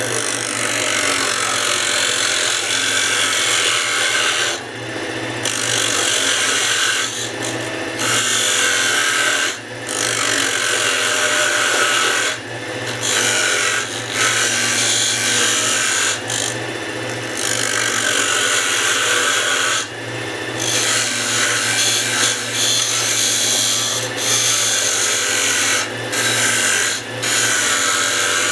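Wood lathe running with a steady low motor hum while a parting tool cuts into the spinning wooden blank, a loud scraping cut broken by short pauses every few seconds as the tool is eased in and out.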